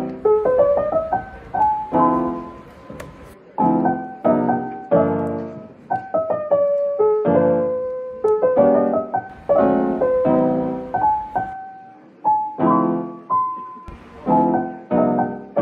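Background piano music: soft chords and a simple melody, a new note or chord struck about every second and left to fade.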